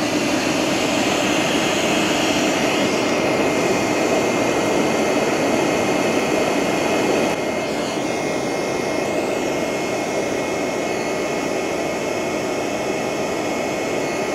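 Hair dryer used as a blower, running steadily and forcing air through a steel pipe into a charcoal-briquette furnace: a steady rushing drone of blown air and forced-draught fire, with a thin steady whine above it. The level drops slightly about seven seconds in.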